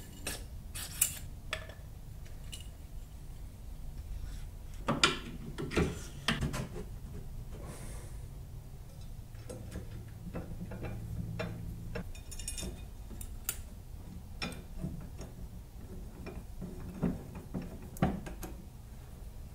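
Metal parts clicking and knocking as they are handled and screwed together: a steel linear rail rod, aluminium blocks and an aluminium flat bar, with hex keys turning screws. The sharpest knocks come about five to six seconds in and again near the end.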